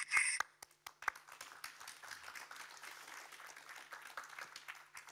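Audience and panellists applauding: a patter of many hand claps that tails off near the end.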